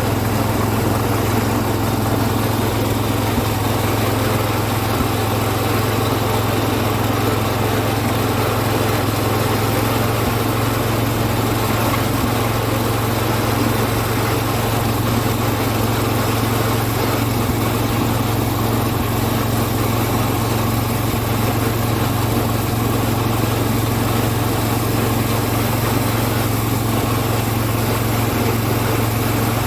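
John Deere garden tractor engine running steadily at an even speed as the tractor drives in third gear.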